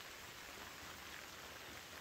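Faint, steady light rain falling, with scattered drops ticking.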